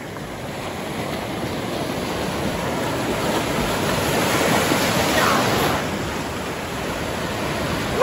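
Ocean surf: waves breaking and rushing through the shallows close to the microphone, a steady hiss that swells to its loudest about five seconds in and then eases a little.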